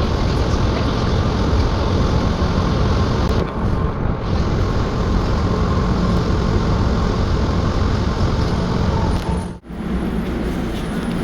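Rubber-tyred automated people-mover train running through its tunnel, a steady loud rumble and hum of tyres and motors on the guideway. The sound drops out suddenly for a moment about ten seconds in.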